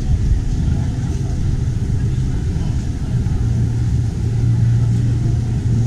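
A car engine idling steadily, a constant low hum that grows a little stronger about four seconds in, with crowd chatter around it.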